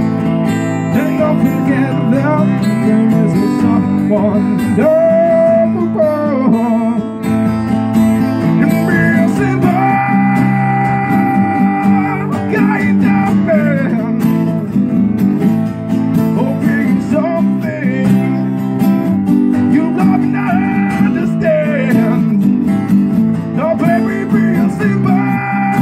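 Two guitars played live as a duo: a steady strummed acoustic guitar rhythm under a melody line with several long held notes.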